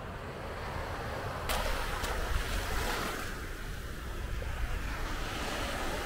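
Sea waves breaking and washing up the shore, with a surge of hiss about one and a half seconds in. A low rumble of wind on the microphone runs underneath.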